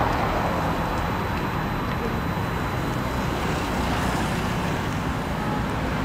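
Steady road traffic noise, with indistinct chatter of people underneath.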